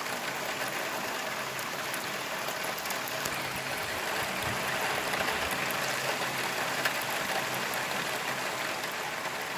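Heavy rain falling steadily, an even, dense hiss of downpour with no let-up.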